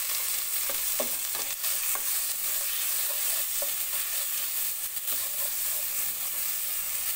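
Diced tomatoes, onion and garlic sizzling in hot margarine and butter in a cooking pot while being stirred with a spatula: a steady frying hiss with faint scrapes and ticks of the stirring.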